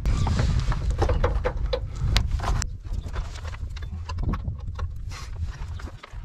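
Hand ratchet being worked on a truck's motor mount bolt: irregular metallic clicks and knocks over a steady low rumble.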